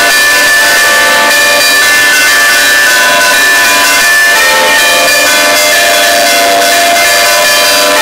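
Several large church bells, hung on wheels and swung, ringing at very close range inside the bell tower: very loud, continuous, overlapping ringing tones, with fresh strikes coming in all the time.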